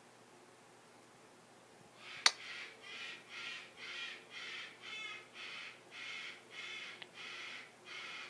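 African grey parrot making a regular run of short calls, about two a second, starting a couple of seconds in just after a single sharp click.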